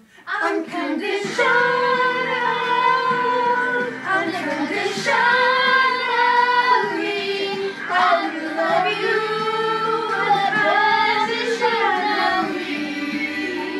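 A woman and a man singing a song together into microphones, with long held notes.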